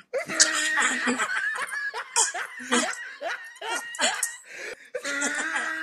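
People laughing and snickering in short, repeated bursts.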